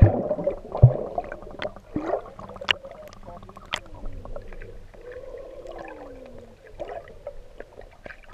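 Underwater sound picked up through an action camera's waterproof housing: water sloshing and bubbling around it, with sharp knocks and a heavy thump in the first second and a few short falling tones later on.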